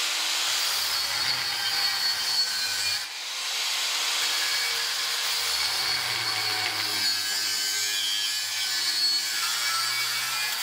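Angle grinder with a cut-off disc cutting through 42 mm steel water pipe, a continuous grinding noise with a brief dip about three seconds in.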